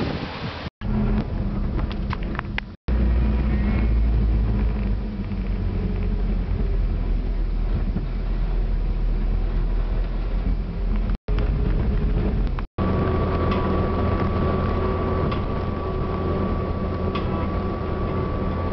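Land Rover engine and driving noise, a steady low rumble broken by four brief dropouts to silence where clips are cut together. The last stretch is a steady cruise heard from inside the vehicle, with a thin constant whine over the rumble.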